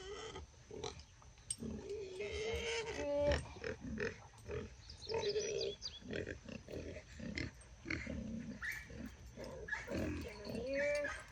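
Hound puppies whining and grunting close by, a series of short, wavering, pitched cries, with scattered clicks and knocks mixed in.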